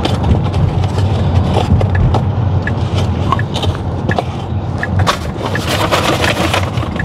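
Steady low road and tyre noise inside the cabin of a Tesla Model X on a wet road, with crunchy chewing and small clicks close to the microphone. A louder hiss rises about five seconds in and lasts over a second.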